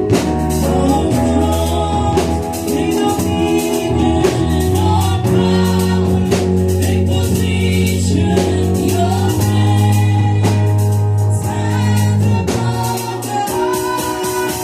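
Live gospel worship music: voices singing over a band with bass, keyboard and drum kit.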